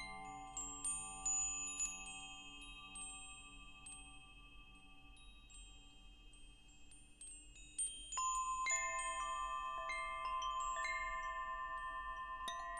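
Wind chimes ringing: scattered strikes of several clear pitched tones at first, dying away to a soft ring through the middle, then a fresh flurry of louder strikes about eight seconds in.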